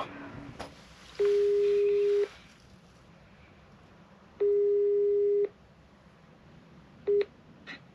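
Telephone ringback tone from a smartphone on speakerphone: two one-second steady beeps a few seconds apart, then a third beep cut short as the call is answered.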